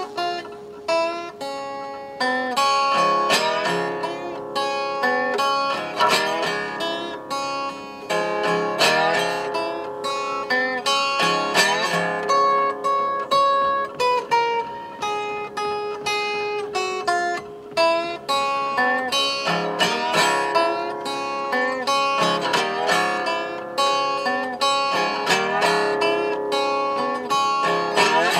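Solo resonator guitar, its metal cone giving a bright ringing tone, fingerpicked in a blues style: a steady run of plucked single notes and chords, with a few notes sliding in pitch.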